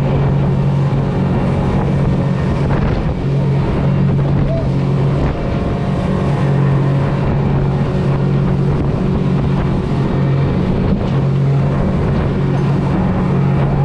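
Motorboat engine running with a steady low drone, with wind buffeting the microphone.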